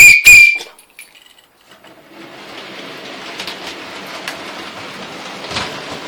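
Two sharp clicks with a short metallic ring near the start, as the model railway points are switched, then about two seconds in the model Class 55 Deltic locomotive and its wagons start running along the track with a steady whirring rattle.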